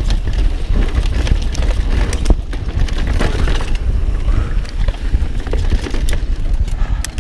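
Mountain bike riding over a rough trail: a steady low rumble from the ride and wind on the microphone, with tyres crunching over dirt and rock and scattered sharp clicks and knocks from the bike rattling.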